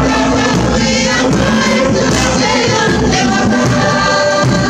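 Music with a group of voices singing together, a Cook Islands performance song, sung continuously with held notes over a steady accompaniment.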